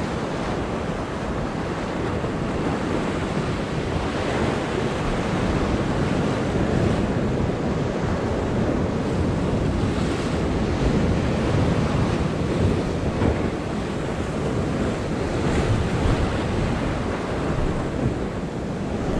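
Ocean surf churning and washing below, with steady wind on the microphone.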